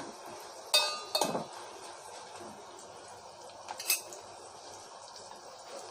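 A metal spoon stirring a tempering of dals, chillies and curry leaves frying in oil, clinking against the pan: two sharp clinks about a second in and another near four seconds.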